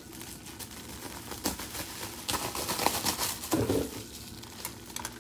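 Crinkling and rustling of a silver bubble-foil insulated packaging liner as it is handled and cut open with scissors, with a thicker flurry of crackles about two to three and a half seconds in.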